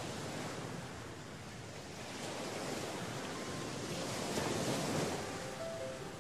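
Sea waves washing onto the shore, swelling to a peak about four to five seconds in.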